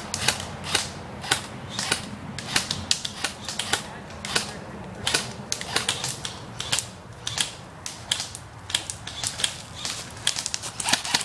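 Airsoft gunfire: many sharp snapping shots at irregular intervals, a few a second, bunching into quick clusters near the end.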